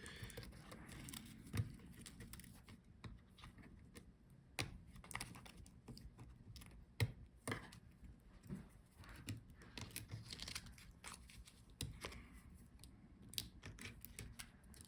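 Faint, scattered clicks and light taps of small laptop parts being handled by hand, as antenna wire connectors and cables are unplugged from the motherboard.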